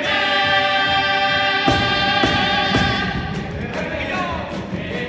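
All-male chorus singing a long held chord in harmony, then moving into a new sung line. Drum strikes come in about two seconds in.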